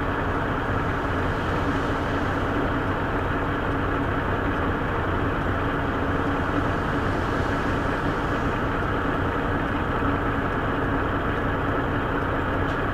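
Semi-truck's diesel engine running steadily, heard from inside the cab.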